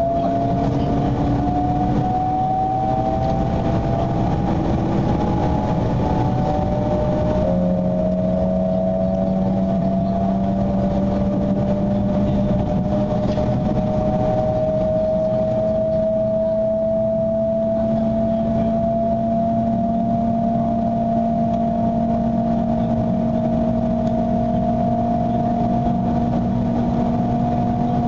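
Cabin sound of a 300 series Shinkansen accelerating: the inverter and traction motors whine in several tones that climb slowly in pitch, with a sudden shift in the tones about seven seconds in, over the steady rumble of the running train.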